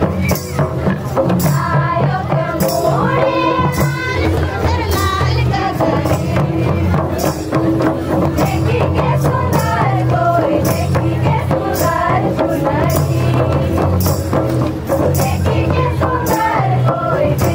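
Nagpuri Adivasi folk music: a singing voice carries the wavering melody over steady drum beats and bright jingling, tambourine-like percussion that keeps an even rhythm throughout.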